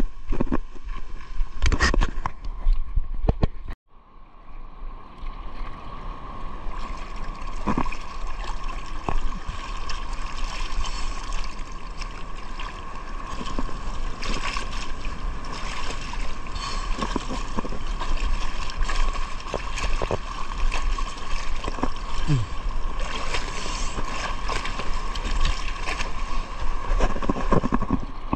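A boat's engine running steadily, mixed with wind and water noise; the sound drops out briefly about four seconds in and then carries on.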